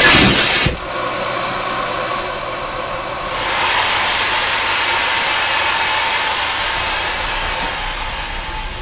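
Vacuum cleaner running with a steady rush of air and a faint whine. It opens with a loud burst lasting under a second and grows louder about three and a half seconds in.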